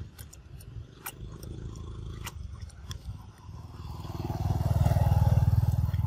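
A motorcycle engine passing by: its rapid, even putter builds from about halfway and is loudest near the end. Sharp light clicks come in the first couple of seconds.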